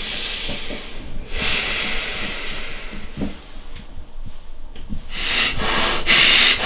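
A person breathing heavily in long, hissing breaths: two in a row, a pause of about two seconds, then a louder one near the end.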